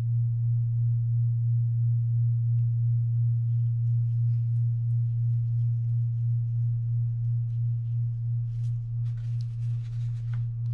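A steady low hum on one unchanging pitch, the loudest thing throughout. In the last couple of seconds there are faint light clicks and rustles from small reel parts being handled on the work mat.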